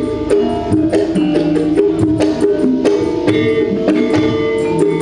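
Live campursari music from a Javanese gamelan ensemble: metallophones ring out steady melody notes over a quick, even beat of drum strokes.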